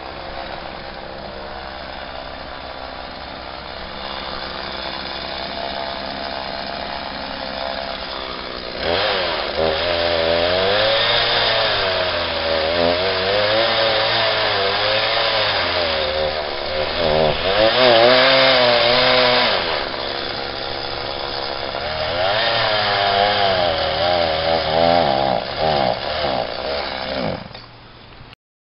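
Gas chainsaw carving into a wooden log. It runs low and steady for several seconds, then about a third of the way in it revs up and bites into the wood, its pitch wavering up and down as the load changes. It eases off briefly and cuts again before the sound stops suddenly near the end.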